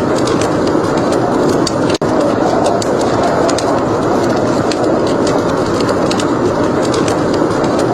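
Crackling fire: many sharp pops and crackles over a steady rushing noise, which cuts out for an instant about two seconds in.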